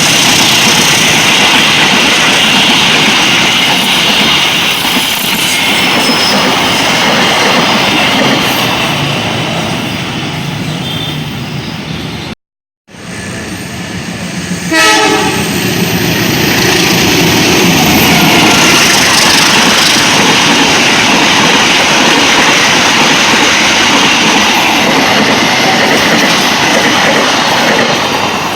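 A locomotive-hauled passenger train passing close by, its wheels clattering and rumbling over the rails. The sound cuts out briefly near the middle, then returns with a short, loud horn-like blast before the rumble carries on.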